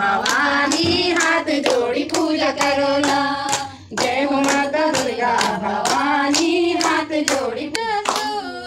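A group of women singing a Hindu devotional kirtan bhajan together, clapping along in a steady rhythm of about two to three claps a second. The singing and clapping break off briefly just before four seconds in, then go on.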